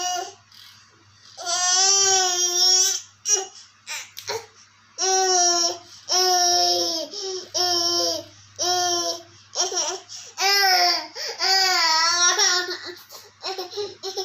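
A 12-month-old toddler crying and whining in a string of high-pitched wails, each about a second long, with short catches of breath between them.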